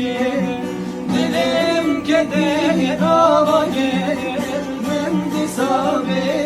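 Music: a voice singing over plucked string accompaniment.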